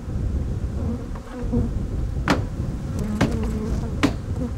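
Honey bees buzzing in a steady hum over an open hive's brood frame, with three sharp taps a little over two, three and four seconds in.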